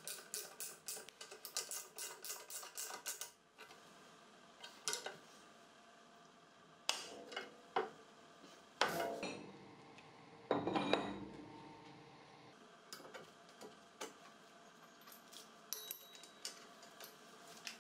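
Metal parts and tools clinking and knocking as they are handled: a quick run of sharp clicks at the start, scattered single knocks, and a longer rattling scrape about eleven seconds in.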